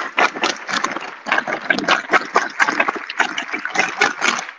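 Large crowd applauding, many hands clapping together in a dense patter.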